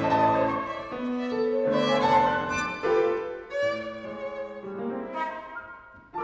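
Live chamber music for violin, flute and grand piano: a string of held notes that change pitch every second or so, thinning out and fading away near the end.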